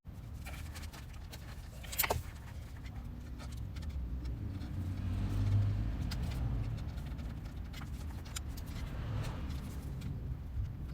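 Honda CBR1000RR inline-four engine running steadily at idle, a low rumble with scattered light metallic clicks. The engine is running so an abnormal engine noise can be traced.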